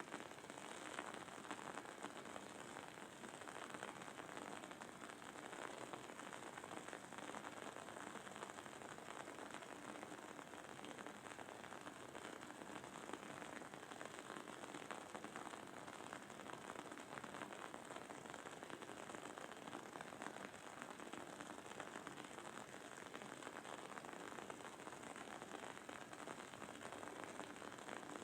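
Wood-wick candle burning: the wooden wick gives a faint, steady, dense crackle and sizzle.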